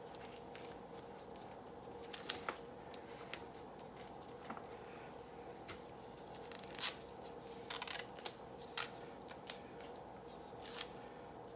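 Adhesive tape being handled and torn to secure a nasogastric tube, heard as scattered short rustles and clicks, loudest a little after two seconds in and around the middle, over a faint steady hum.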